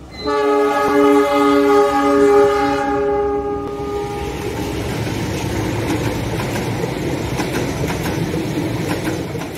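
Diesel locomotive horn sounding one long multi-note blast for about three and a half seconds. The steady rumble and clatter of a passing train follows, with wheels clicking over the rail joints.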